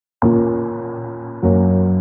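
Background music of sustained, slowly fading chords, a new chord struck just over a second in.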